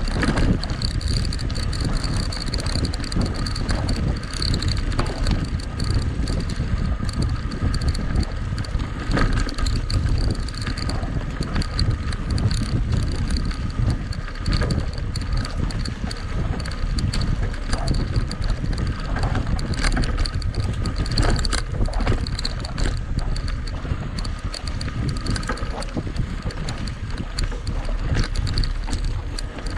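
Mountain bike ridden at race pace on a dirt trail: wind buffeting the microphone with a steady low rumble, and frequent short knocks and rattles from the bike jolting over bumps.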